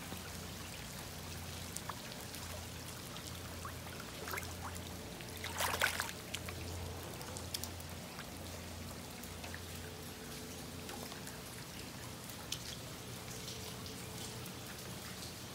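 Rain falling and runoff water trickling and pouring, with scattered drips and a faint low hum underneath. A louder rush of water comes about six seconds in.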